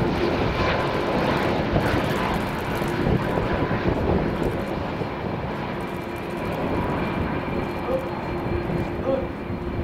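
Airbus A330 jet engines at landing-approach power: a steady rushing drone with a few faint steady tones, slowly fading as the airliner flares over the runway.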